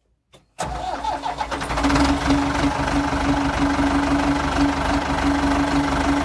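Ford 6710 tractor's diesel engine starting: a click, then about half a second in it turns over and catches, and it settles into steady running, heard from inside the cab.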